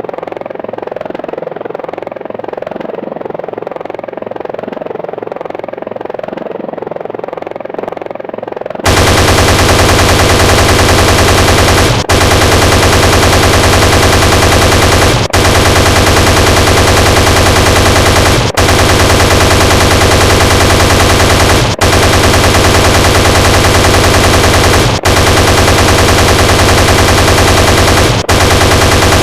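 Helicopter rotor and engine sound effect for about the first nine seconds, then an abrupt cut to loud, very rapid continuous gunfire from the Apache's chain gun. The gunfire comes in stretches of about three seconds, each with a brief break before the next.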